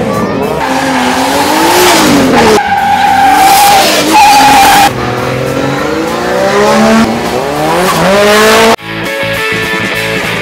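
Drift car engine revving up and down hard, with a long high tyre squeal in the middle as the car slides and another climb in revs. The car sound cuts off abruptly near the end, and guitar music takes over.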